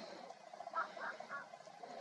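Hunting dogs barking at a wild boar they are holding at bay, heard faintly from a distance, with three short barks about a second in.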